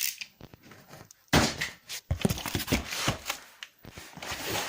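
A few knocks and thuds of objects being handled and set down, the loudest about a second and a half in.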